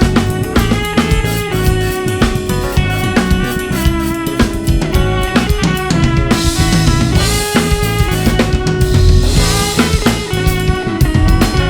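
A band playing live, with pitched instruments holding chords over a busy drum kit. Fast snare and bass drum hits run throughout, and there are washy crashes on the Soultone cymbals about six and a half and nine seconds in.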